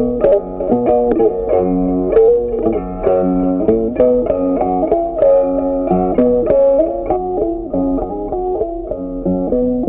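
Background music: a guitar melody of plucked notes changing quickly over low bass notes.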